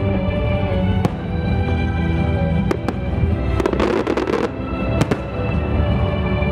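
Aerial fireworks bursting: scattered sharp bangs, with a dense run of crackling about four seconds in. Music plays steadily underneath.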